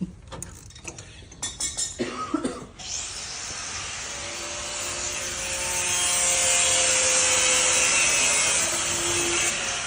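A few knocks and clicks, then about three seconds in a steady rasping, hissing tool noise starts and grows louder, consistent with a power tool cutting or grinding during truck suspension work.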